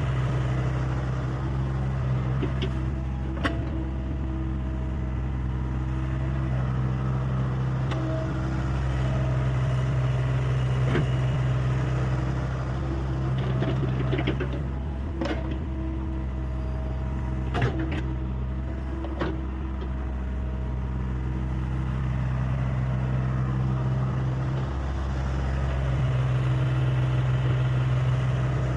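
Hyundai 85A excavator's diesel engine running steadily while digging, its level swelling and easing a little with the work, with a few sharp knocks scattered through.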